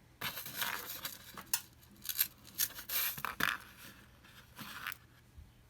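Small metal magnetic jewelry clasps being handled: a run of light clicks and scraping rattles that stops about five seconds in.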